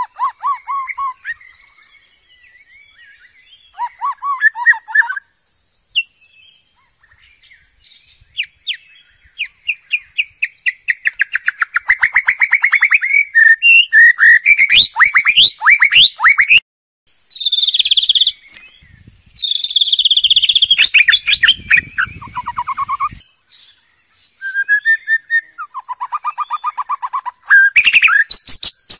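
White-rumped shama singing a long, varied song of clear whistles, fast trills and chattering phrases, broken by short pauses. A faint, steady high-pitched hum runs underneath.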